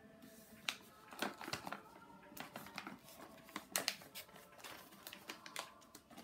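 Wrapping paper being torn and crinkled off a present: a run of irregular sharp rips and crackles, the loudest about a second in and near the middle.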